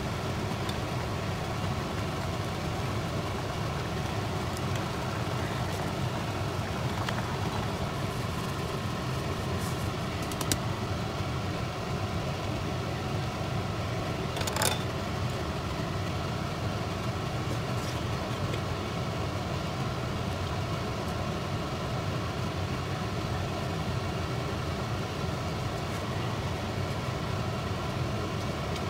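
Steady hum and hiss of an induction cooktop running at high power under a pot of simmering noodles, with a couple of sharp clicks of utensils against the pot, about ten and fourteen seconds in.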